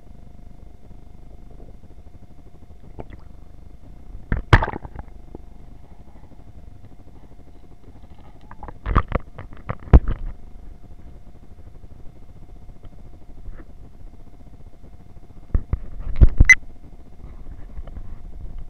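Muffled knocks and bumps of an action camera in its waterproof housing being handled and moved in and out of the water, over a low steady rumble and a faint steady hum. The sharpest knocks come about a quarter of the way in, twice around the middle, and near the end.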